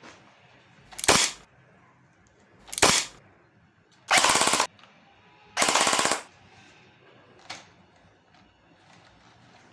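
Airsoft AK-47 replica firing at a target: two short bursts, then two longer full-auto bursts of about half a second each, the gearbox cycling rapidly. A single faint click follows a second and a half later.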